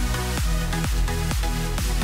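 Electronic dance music with a steady kick drum, a little over two beats a second.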